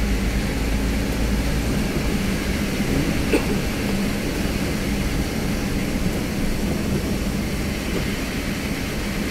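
Steady engine and road noise heard inside a moving bus, with a low hum running under it.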